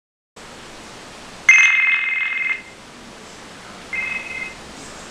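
Telephone ringing twice with a high electronic trill: a ring of about a second starting a second and a half in, then a shorter one about four seconds in, over a faint steady hiss.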